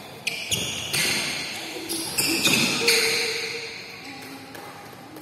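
Badminton rackets striking a shuttlecock in a fast rally, about five sharp hits in the first three seconds, each echoing in a large hall. The hits stop as the rally ends.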